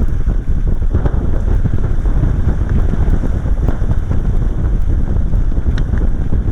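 Falcon 9 rocket's nine Merlin engines heard from a distance during ascent: a steady, deep rumble with a ragged crackle. Wind is buffeting the microphone.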